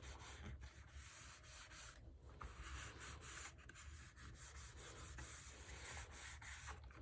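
Faint rubbing of cardstock being handled, with scattered light ticks.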